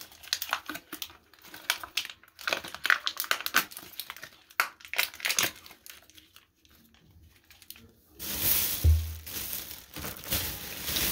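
Plastic wrapper crinkling and tearing as it is peeled off a toilet wax ring, in quick crackly bursts. Near the end comes a louder, denser rustle with a dull thump.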